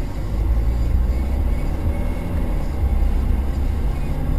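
Steady low rumble of a car driving, its engine and road noise heard from inside the cabin.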